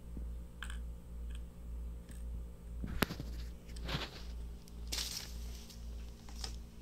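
Clicks and scrapes of a plastic pocket Wi-Fi router being handled and its back cover worked open, with a sharp click about three seconds in and rustling around four and five seconds in. A low hum pulsing about twice a second sits underneath.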